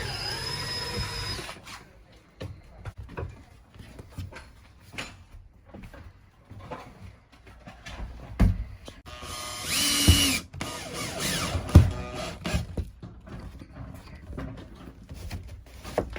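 Cordless drill-driver running in short bursts, a brief whine near the start and a longer whir about ten seconds in, with scattered knocks and clicks of tools and wood between: screws being driven into wooden ceiling cladding.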